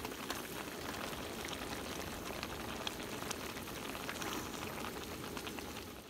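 Pot of udon and vegetable broth bubbling on a gas camp stove, a steady crackling simmer with a patter of rain around it. It softens just before the end.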